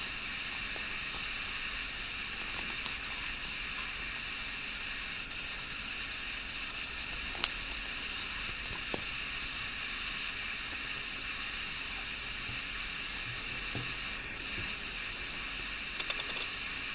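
Steady background hiss with faint handling sounds from hands moving over the crocheted fabric; one sharp click about seven seconds in, and a few small clicks near the end as a clear plastic canvas sheet is handled.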